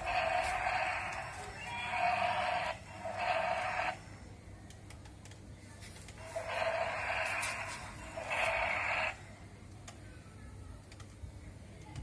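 Battery-operated remote-control toy dinosaur playing its recorded roar through a small built-in speaker, in short bursts. Three bursts come in the first four seconds and two more between about six and nine seconds in, over a faint steady low hum.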